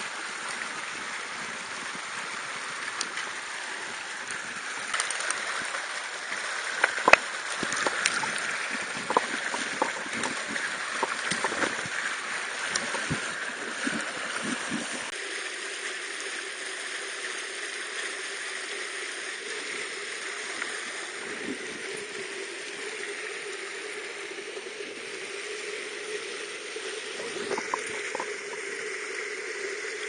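Mountain stream running over rocks, a steady rush of water. A run of knocks and taps sounds over it from about five to fourteen seconds in. After that the water takes on a lower, steadier note.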